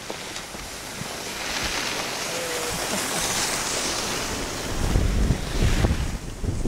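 Skis hissing and scraping over packed snow on a downhill run, the hiss swelling for a few seconds, then wind buffeting the microphone with a low rumble near the end.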